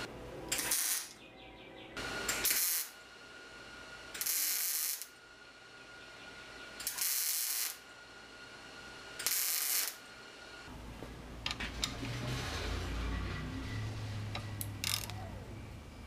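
Ratchet wrench clicking in five short bursts about two seconds apart, as broken-off bolts are worked out of their nuts. After that comes a low rumble with a few sharp knocks.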